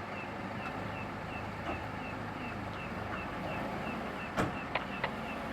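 A vehicle engine running steadily, with a faint high chirp repeating about three times a second. A sharp click about four seconds in, then two smaller ones.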